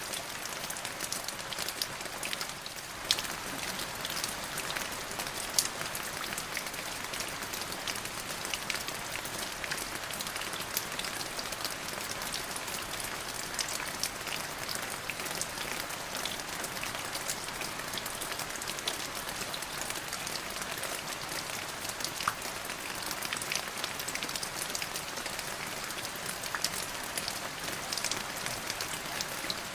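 Steady rain falling on a surface, a dense even patter of drops with a few louder single drips standing out.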